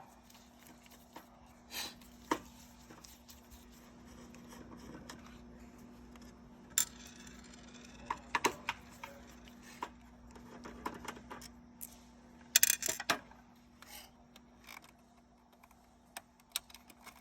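Small clicks and clacks of screws being removed and small panel parts being handled, with a louder cluster of clacks about two-thirds of the way through, over a faint steady hum.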